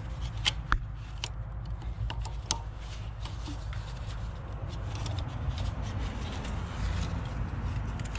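Scattered light clicks and small rattles from hands working a plastic wiring-harness connector loose in a cramped engine bay, over a steady low hum. Most of the clicks come in the first couple of seconds.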